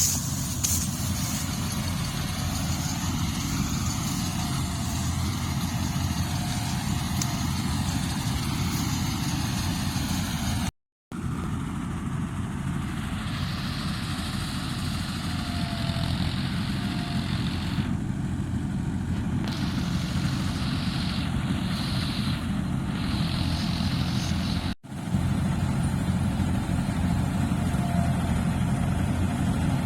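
Engine of rice-harvesting machinery running steadily with a low, even drone. The sound cuts out briefly twice, about a third of the way in and again near the end.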